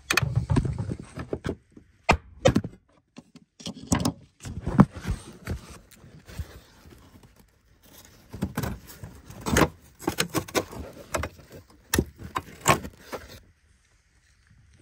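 Sharp metallic knocks and clanks at irregular intervals: a hammer striking a flathead screwdriver set against the fuel pump lock ring of a 2007 Dodge Magnum, to rotate the ring loose.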